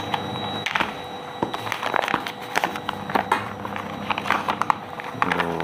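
Paper wrapping of a nasi bungkus rice packet crinkling and rustling in quick irregular crackles as it is pulled open by hand, over a faint steady hum.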